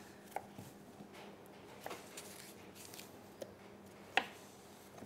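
Kitchen knife cutting apple into small pieces on a plastic chopping board: a few soft, scattered taps, the clearest about four seconds in.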